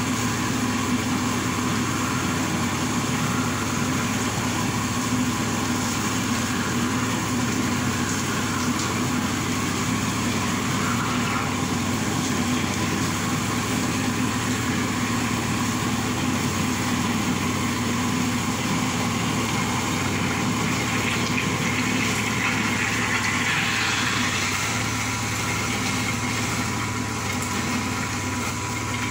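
Electric soybean grinder's motor running steadily, grinding soaked soybeans fed with water into raw soy milk.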